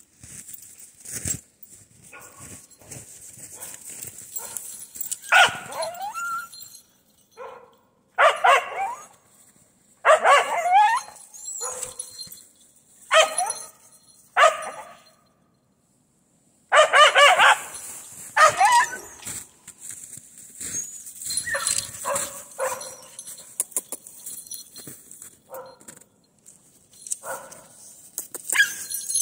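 A dog barking and yelping in irregular bouts, some calls drawn out with the pitch sliding up and down. The loudest bouts come about a third of the way in and again just past halfway.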